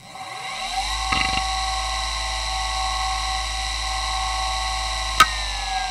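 Toshiba MK2024FC 2.5-inch glass-platter IDE hard drive (3200 rpm) spinning up with a rising whine, with a brief clatter of head clicks about a second in. It then idles with a steady whine from spindle bearings that are not the best. About five seconds in comes a single sharp click, and the whine begins to fall as the drive spins down.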